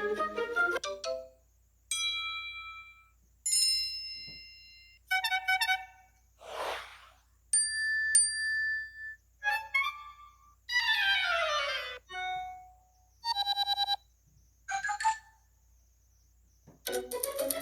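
A run of different iPhone notification tones played one after another, about ten in all: short chimes, dings and quick note runs, one whoosh and one falling glide, each lasting a second or so with brief pauses between.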